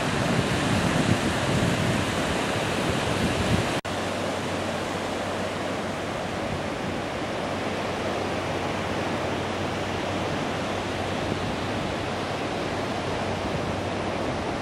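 Surf washing in on a sandy beach as a steady rushing noise, with wind buffeting the microphone. About four seconds in the sound drops out for an instant and carries on as a smoother, steadier rush of surf with less wind rumble.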